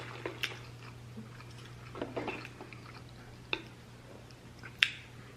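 A person chewing a mouthful of pan-seared chicken breast, a few separate mouth clicks and smacks about a second apart.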